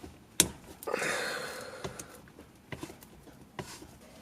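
Hands unscrewing the original shift knob from a Subaru WRX gear shifter: a sharp click about half a second in, about a second of rustling, then a few light clicks and knocks.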